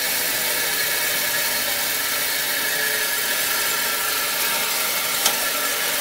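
Electric bench grinder running at steady speed, a constant whir and hiss. A single sharp click sounds about five seconds in.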